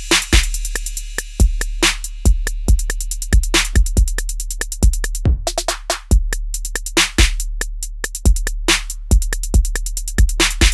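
Background music: a drum-machine beat with a deep, sustained bass and rapid hi-hat ticks.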